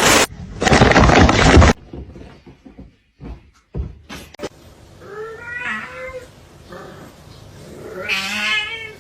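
Domestic cat meowing twice, a drawn-out wavering meow about five seconds in and another near the end. Before them, a loud rushing noise in the first couple of seconds and a few sharp knocks.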